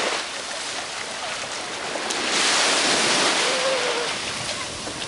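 Small waves washing in and out on a sandy beach, the surf swelling for about a second and a half a couple of seconds in.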